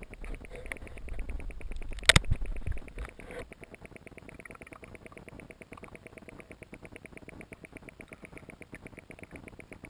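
Underwater sound picked up by a camera inside its waterproof housing. A sharp knock comes about two seconds in amid low rumbling, and the rest is a fast, very even ticking.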